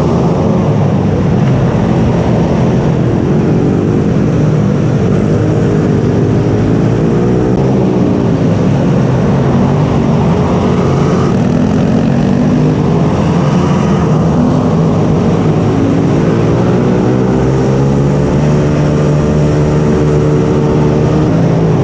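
Racing mini bike's small engine running hard and loud, its pitch climbing and dropping several times as the throttle is opened and rolled off.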